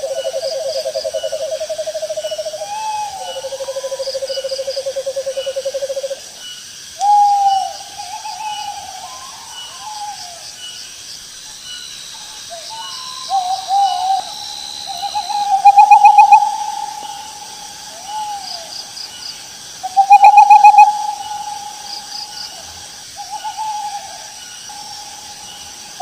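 Owl calling: a long trilled call held at two pitches, then a series of short hoots that rise and fall, several of them much louder in the second half. Insects chirr faintly and steadily in the background.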